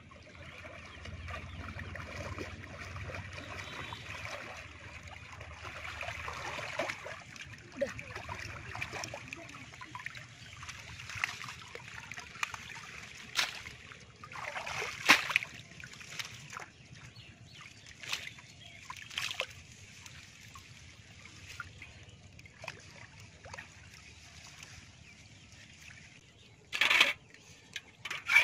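Shallow water sloshing, splashing and trickling as a bamboo-framed push net is pushed through the water and lifted, water running off the mesh. Scattered sharper splashes come through the middle, and a brief louder burst sounds near the end.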